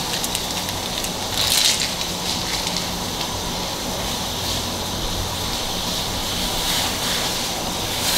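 Water heating in an aluminium frying pan on a gas burner, with jelly powder added: a steady hiss with light crackling as it starts to simmer.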